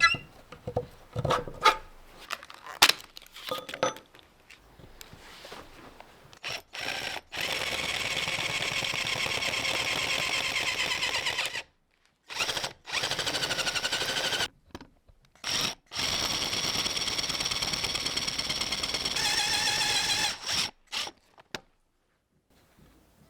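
Electric drill boring with a 16mm masonry bit to enlarge holes in seasoned oak, running in several bursts of a few seconds each with a steady whine and short stops between. A few knocks in the first few seconds before the drilling starts.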